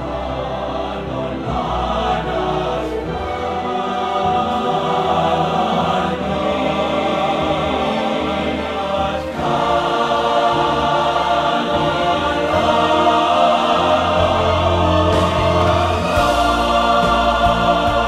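Choral music: a choir singing long held notes with a deep bass swelling up near the end.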